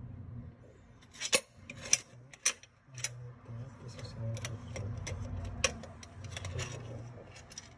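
Hard objects being handled under a kitchen sink: a series of sharp, irregular clicks and knocks, the loudest about a second and a half and two seconds in.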